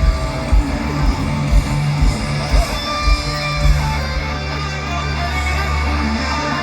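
Live hard-rock band playing: distorted electric guitars over bass, with a kick drum beating about twice a second, then a long held low chord from a little past the middle.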